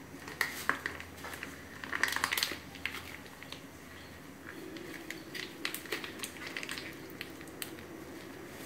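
A plastic margarine sachet crinkling and crackling in irregular bursts as it is squeezed by hand.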